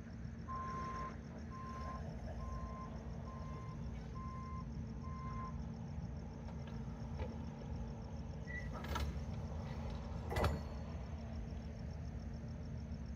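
An electronic backup alarm beeps six times, roughly once a second, then stops. Later come a short chirp and two sharp knocks, the second the louder.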